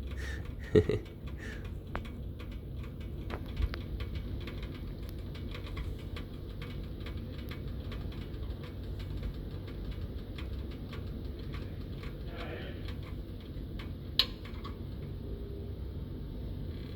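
Faint, irregular crackling ticks from heated solder and flux, over a steady low hum, with one sharp click about fourteen seconds in.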